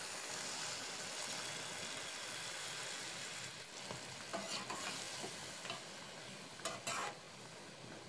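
Chicken curry sizzling in a frying pan as a metal slotted spatula stirs it: a steady hiss, with a few scraping strokes of the spatula against the pan in the second half, the sizzle dying down near the end.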